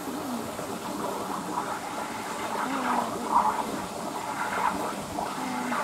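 Steady rush of water in a beaver pool, with faint voices in the background.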